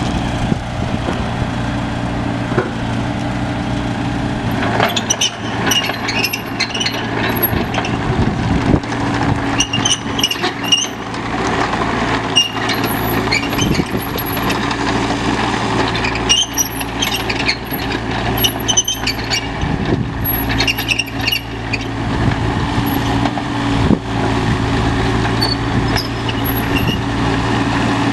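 Yanmar 3TNV88 three-cylinder diesel of a New Holland E355R compact excavator running steadily as the machine travels on rubber tracks over gravel. Short high-pitched squeaks and clinks come and go through the middle stretch.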